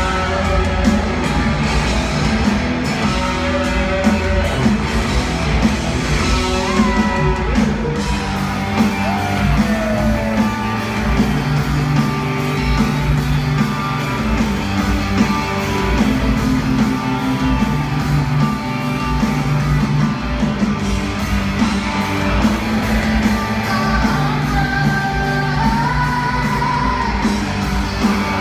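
Rock band playing live: electric guitars, bass and drums with a man singing the melody, heard from the audience in a large, echoing arena.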